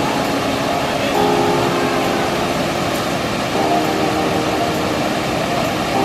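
Waterfall water rushing steadily over rock, with held chords of background music laid over it that stop briefly in the middle.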